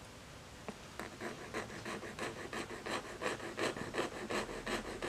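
A tiny gold earring scraped back and forth on a black touchstone to leave a streak of metal for acid testing: short scratching strokes, about three a second, starting about a second in.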